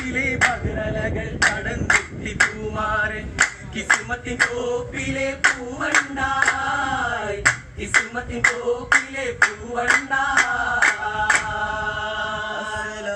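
Vattappattu: a group of men singing in chorus without instruments, with sharp rhythmic hand claps about twice a second. The clapping stops near the end, leaving the held singing.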